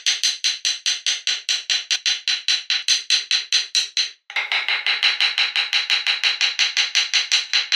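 Rapid, evenly spaced sharp taps, about six a second, with a short break about four seconds in; after the break the taps have a slightly different tone.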